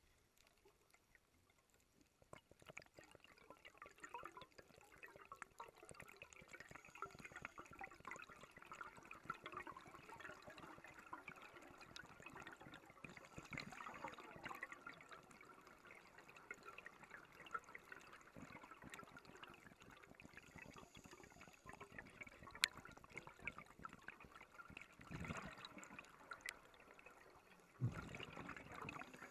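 Faint underwater crackling and clicking of a reef, heard through a diver's camera housing. Near the end, two louder gushes of exhaled air bubbles from the diver.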